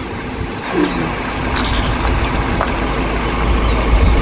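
A vehicle engine idles with a steady low rumble, and short high chirps sound over it now and then.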